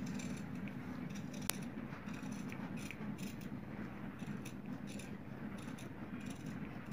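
Tailor's shears cutting through folded buckram in a run of short, irregular snips, with one sharper click about a second and a half in, over a steady low hum.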